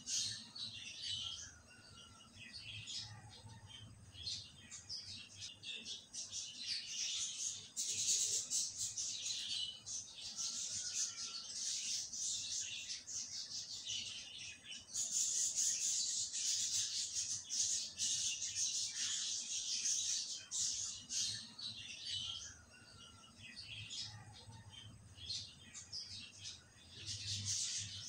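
Small birds chirping and twittering, a dense, high chatter of quick calls that grows louder for a stretch about eight seconds in and again through the middle.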